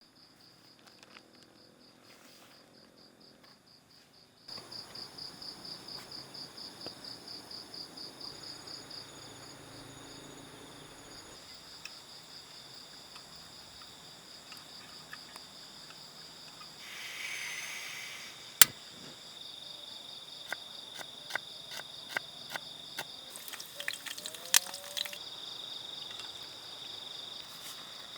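Crickets or other night insects chirring in a steady high trill, pulsing a few times a second, beginning a few seconds in. In the second half there are scattered sharp clicks, one much louder than the rest.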